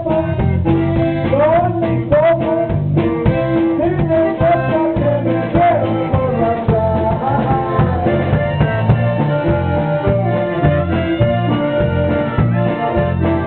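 A live band playing, led by a button accordion over drums and guitar, with a steady beat.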